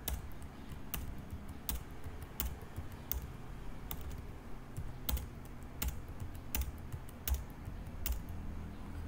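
Computer keyboard keys pressed one at a time, a sharp click roughly every three-quarters of a second, while matrix entries are typed in.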